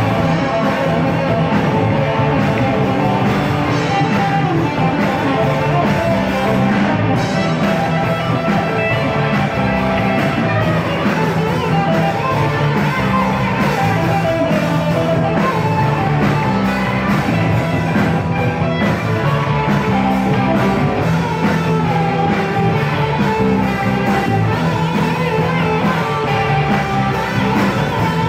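Rock band playing a full-band rock song, electric guitar over bass and drums at a steady beat.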